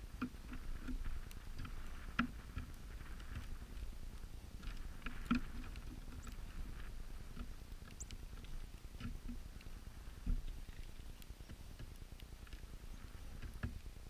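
Irregular taps and clicks of birds pecking seed at a caged feeder tray, over a low rumble.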